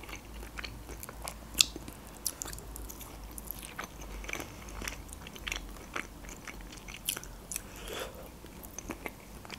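Close-miked chewing and wet mouth sounds of a person eating mackerel, with scattered small smacks and clicks and one sharper click about a second and a half in.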